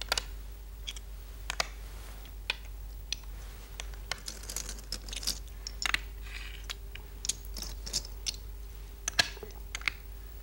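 Go stones being placed one after another on a large vertical demonstration Go board: a string of irregular, sharp clicks and taps, more than a dozen of them, over a faint steady hum.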